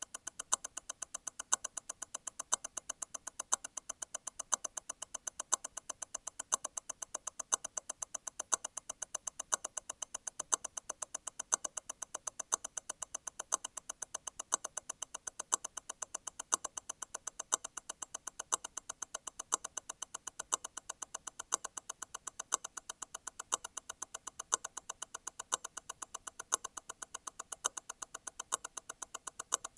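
Grand Seiko T0 Constant-force Tourbillon hand-wound movement ticking at 28,800 vibrations per hour, eight even ticks a second. About once a second a louder click cuts through: the constant-force stop wheel releasing and striking again every eight beats.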